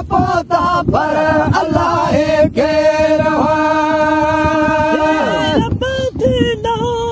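A man chanting a Sindhi devotional molud, his voice bending through ornamented phrases and holding one long note through the middle.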